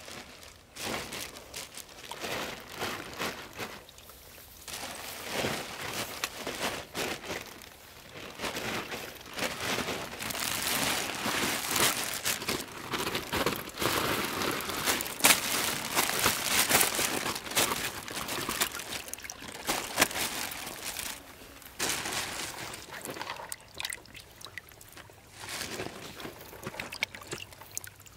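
Mud-pond water sloshing and splashing in irregular bursts, with scattered sharp knocks; busiest in the middle.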